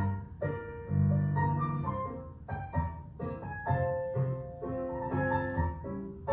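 Jazz-style piano accompaniment for ballet class: chords over a low bass line, with a clear pulse of struck notes.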